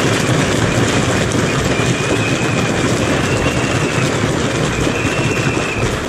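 Dense, steady roar of a large crowd of protesters shouting and cheering together, with several high held tones sounding over it at intervals.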